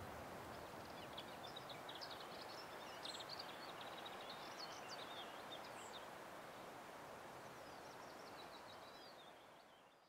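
Lesser whitethroat singing faintly, quick scratchy twittering notes over a steady outdoor hiss, fading out near the end.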